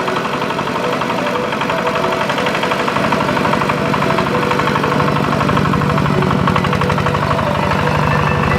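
Diesel engine of a heavy machine (bulldozer or tractor) running steadily with a rapid, even firing beat. Its low note grows stronger about three seconds in.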